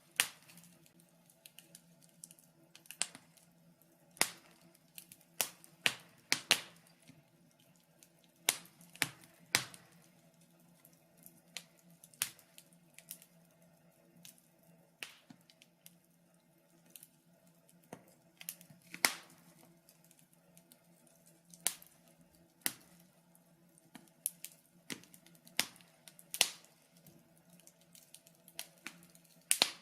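Wood fire crackling, with irregular sharp pops and snaps of burning wood, a few every couple of seconds and some much louder than others.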